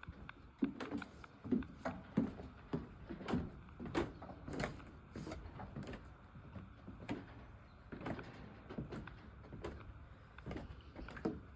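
Footsteps on wooden planks at a steady walking pace, each step a hollow knock with some creaking.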